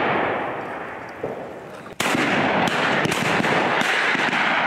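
Shotgun shots at a flushed pheasant. The long, rolling echo of one shot fades away, then a second shot goes off about two seconds in, and its echo rolls on loudly before slowly dying away.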